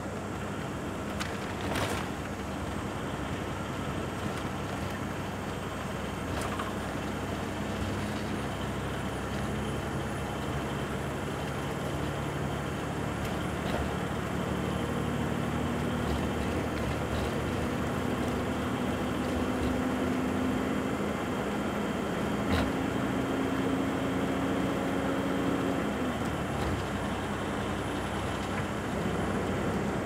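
Inside a moving road vehicle: steady road and engine noise, with the engine hum stepping up in pitch a few times in the second half.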